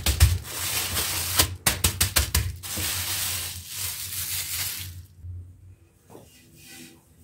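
Kitchen clatter, sharp clicks of utensils against dishes, over a steady hiss that stops about five seconds in.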